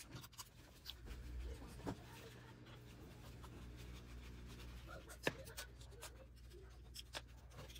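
Faint scratching and a few small clicks of a Torx T15 screwdriver working screws out of a cordless drill's plastic housing, with the tool handled in gloved hands, over a low steady hum. The sharpest click comes about five seconds in.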